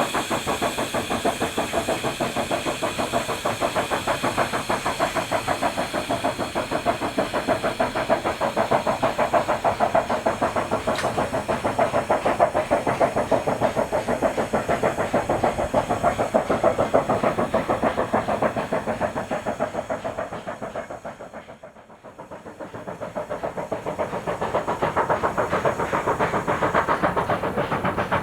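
China Railways JS-class 2-8-2 steam locomotive working, its exhaust beating in a quick, steady rhythm with hiss. The sound fades away about three-quarters of the way through, then comes back.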